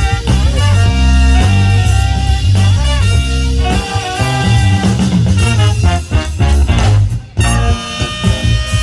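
Band music with a strong bass line and guitar, breaking off for a moment about seven seconds in and then coming back in.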